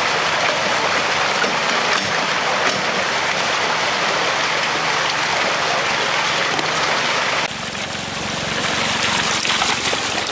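Water and trout gushing out of a hatchery stocking truck's discharge tube and splashing into the lake: a steady rushing, with a faint low hum under it. The sound changes abruptly about seven and a half seconds in, turning brighter.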